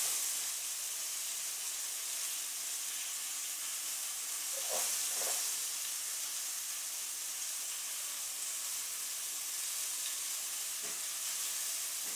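Minced garlic, green onions and chicken breasts sizzling steadily in hot olive oil in a skillet, with two brief soft knocks about five seconds in.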